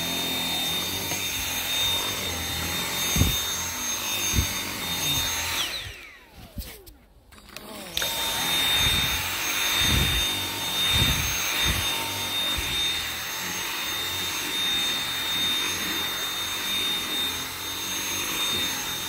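Dyson V7 Motorhead cordless stick vacuum running with its motorised power head, a steady high-pitched whine over airflow noise. It is switched off about five seconds in and the motor winds down with a falling whine. About two seconds later it starts again abruptly and runs on, with a few low thumps as the head knocks against the surface.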